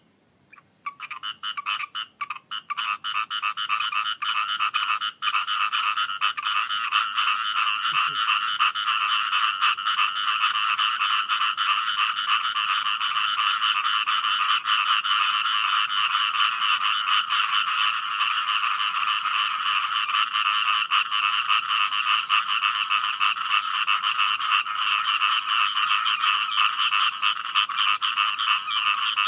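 A chorus of frogs croaking in rapid, overlapping calls. The calls come in scattered spurts for the first few seconds, then build into a dense, continuous chorus.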